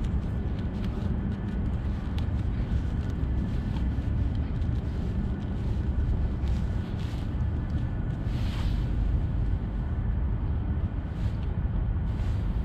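Wind rumbling steadily on the microphone, with faint small ticks and rustles of hands squeezing and shaping a mesh bag of pellets.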